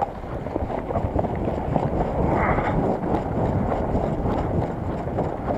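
Wind rumbling on a body-worn action camera's microphone while its wearer runs, with running footsteps on snow and grass and gear jostling.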